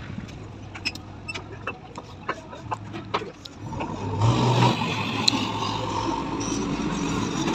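JCB 3DX backhoe loader's diesel engine running, with scattered clicks and knocks, then revving up and working harder about four seconds in.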